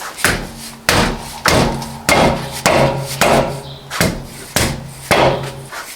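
Repeated hammer blows on the wheel assembly: about ten sharp strikes in a steady rhythm, roughly one every 0.6 seconds.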